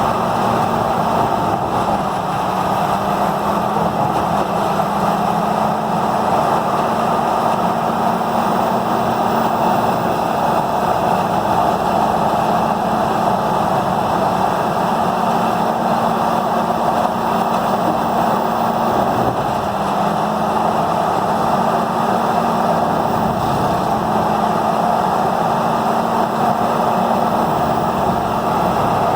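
Peterson 5710D horizontal grinder running flat out: its 1125 hp diesel engine drones steadily under heavy load over the dense rushing noise of the grinding mill. The engine's pitch sags briefly twice, about two seconds in and again near twenty seconds, as the load bites.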